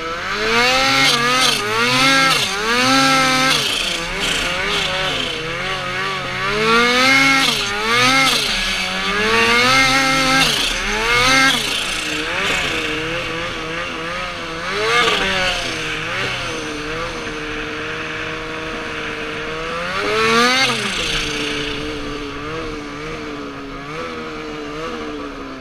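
Aerocharger-turbocharged 2014 Ski-doo XM Freeride snowmobile's two-stroke twin, running at 10 psi boost, revving up and down repeatedly under throttle. Later it holds steadier and lower, revs once more about twenty seconds in, then eases off near the end.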